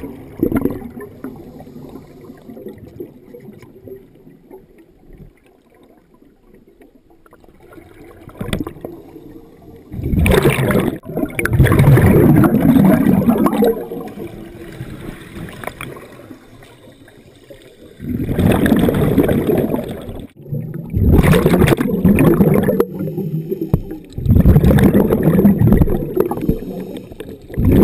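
A scuba diver's exhaled bubbles gurgling out of the regulator underwater, in loud bursts of two to three seconds with quieter pauses between breaths.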